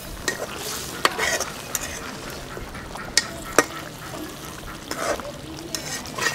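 Metal spatula stirring and scraping duck curry in a metal karai over a steady frying sizzle, with several sharp clacks where the spatula knocks against the pan.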